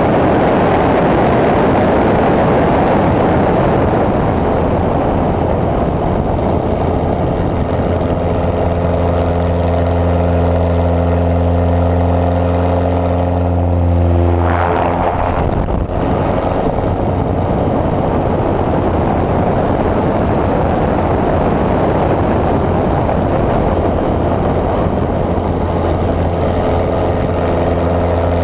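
Pitts S-1S aerobatic biplane's four-cylinder Lycoming engine and propeller running in flight, under heavy wind noise on the microphone that all but drowns the engine for the first several seconds. About halfway through the note swells briefly, then dips for a moment, before settling steady again.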